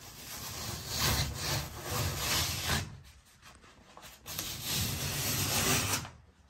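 Damp wallpaper being peeled and torn off a ceiling by hand in two long rips, the second starting about four seconds in.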